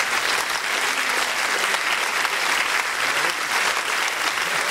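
Large crowd applauding steadily: dense, unbroken clapping from many hands.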